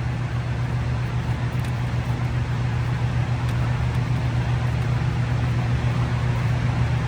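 Steady low droning hum of a running machine, with an even haze of noise over it.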